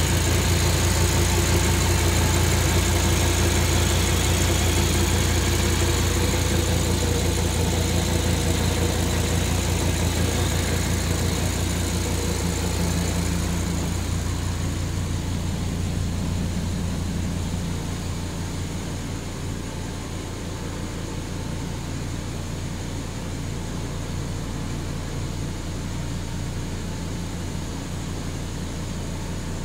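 Audi R8's 5.2-litre V10 idling steadily with a deep, even hum. It is loud at first and grows quieter from about halfway through.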